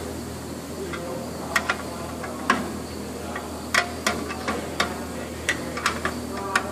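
Sharp, irregular clicks and taps of a thin metal tool against a bench grinder's tool rest and wheel guard while the rest-to-wheel gap is set, over a steady low hum.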